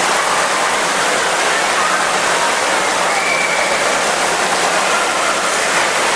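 Steady rush of running water mixed with the constant din of an indoor waterpark, with faint distant voices and shouts over it.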